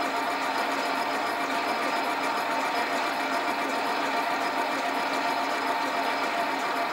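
Sieg bench lathe running steadily, spindle turning a brass bearing blank in the chuck: an even motor-and-gear hum with a few fixed whining tones that holds level throughout.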